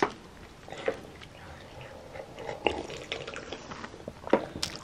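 Small child drinking the leftover milk straight from a cereal bowl: soft sips, with a few light clicks and knocks as the bowl is handled.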